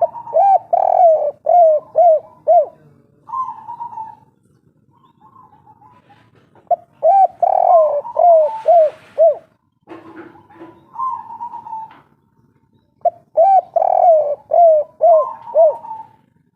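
Spotted dove (tekukur) cooing in the 'kuk 3' style: three phrases, each a quick run of five or six rolling coos, with a few longer held coos between the phrases.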